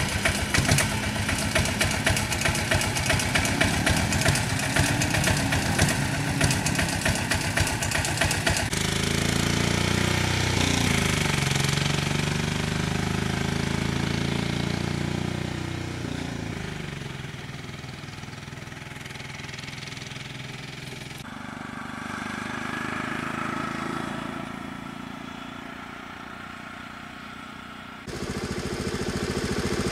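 Motorcycle and small-truck engines idling with a rapid, steady chugging. After a sudden change about nine seconds in, an engine rises and falls in pitch, and then the engine sound grows quieter. Near the end it jumps louder again.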